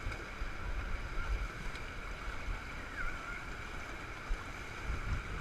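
Steady rush of water running down the water-slide flumes, with wind buffeting the microphone as a low rumble. A faint distant voice about three seconds in.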